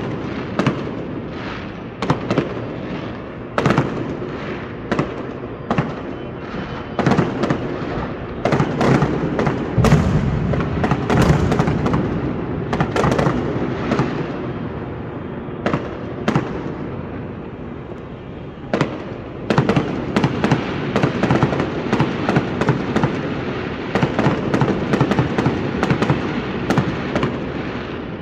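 Fireworks and firecrackers going off across a city: a near-constant crackle broken by many sharp bangs, heaviest and deepest from about nine to twelve seconds in.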